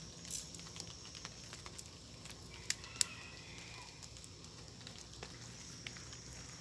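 Wood crackling and snapping: scattered light clicks and crackles, with two sharper snaps about three seconds in.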